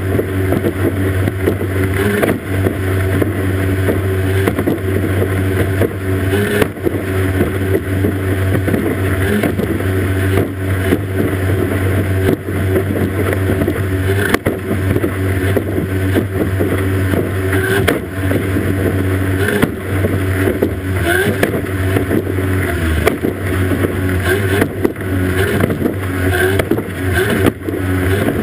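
Racing powerboat's outboard engine running at high speed, a steady low drone, under the rush of spray and water, with frequent sharp knocks as the hull slams over the waves.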